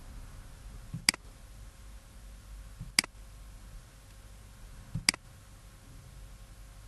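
Computer mouse button clicked three times, about two seconds apart, each a short sharp click with a soft knock just before it, over a faint steady background hum.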